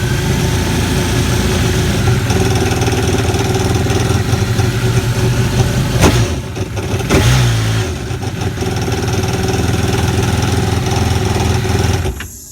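Honda AquaTrax F-12X jet ski engine running at idle with an odd noise whose cause is not yet known; it is said to sound fine with a little throttle. The running note changes briefly twice around the middle, and the engine stops abruptly near the end.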